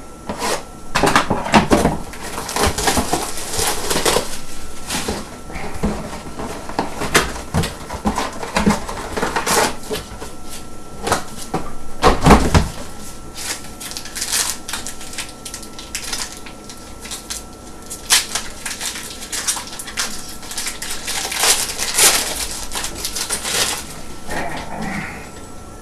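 Trading card box and packs being torn open and handled: irregular crinkling, rustling and tearing of wrappers and cardboard, with a louder rip about twelve seconds in.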